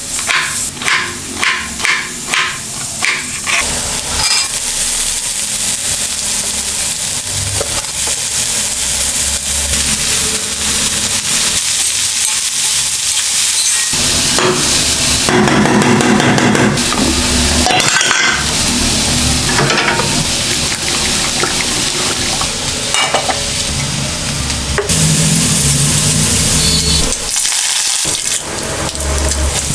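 Food sizzling as it fries in a pan, with stirring. It opens with about four seconds of quick, even strokes, about three a second.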